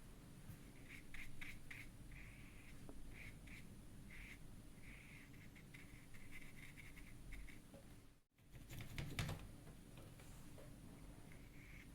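Faint, short scratchy strokes on paper, repeated in quick runs, with a soft knock about nine seconds in.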